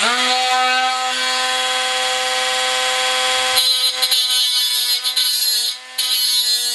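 Electric grinder spinning up to speed and running with a steady whine while grinding back excess metal. Its sound changes a little over halfway, and it eases off briefly twice near the end.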